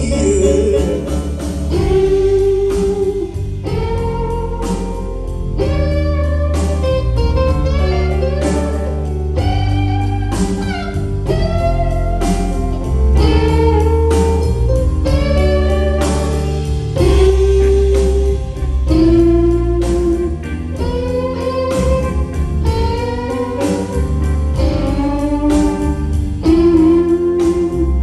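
Live blues band playing an instrumental passage: an electric guitar lead line with bending notes over bass guitar and drums.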